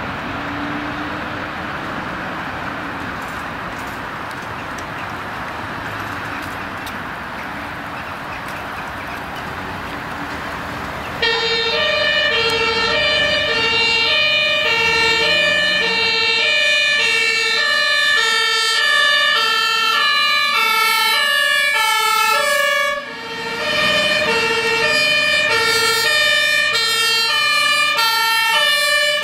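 Road traffic noise, then about eleven seconds in a loud German two-tone fire engine siren (Martinshorn) starts, alternating between two pitches. A second two-tone horn soon joins out of step, as the HLF 2 rescue pumper and the turntable ladder truck pass together on an emergency run.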